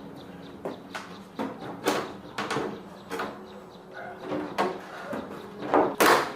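Irregular knocks and clicks of hard parts being handled and set down, about a dozen over several seconds, the loudest just before the end, over a faint steady hum.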